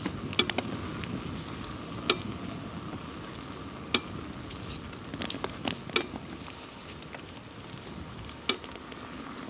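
Bicycle rolling over cracked asphalt: steady tyre and road noise with irregular clicks and rattles from the bike as it goes over the bumps.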